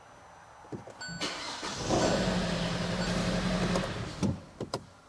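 Hyundai Tucson's 2.0 GDI four-cylinder engine cranking and starting about a second in, running for about two seconds, then shut off at about four seconds in. The engine is misfiring, dead on cylinder number 2.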